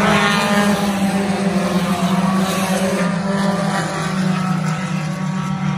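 Engines of several compact dirt-track race cars, the #72 Ford Focus among them, running hard as the field goes past: a steady engine drone whose pitches rise and fall as the cars pass.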